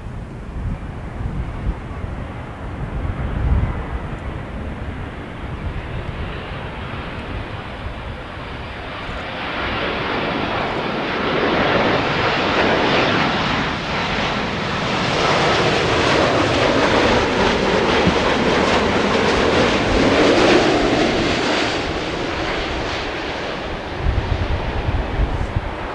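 Jet aircraft passing close by. Its engine roar builds for several seconds, is loudest for about six seconds in the middle with a sweeping rise and fall in pitch, then fades away. A low rumble of wind on the microphone is heard at the start and again near the end.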